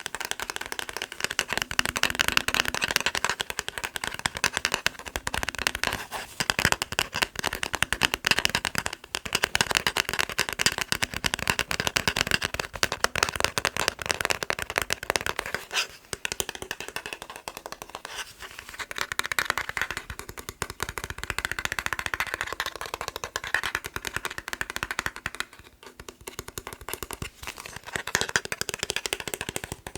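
Fast tapping on a plastic TV remote: a dense run of rapid clicks, broken by a few brief pauses.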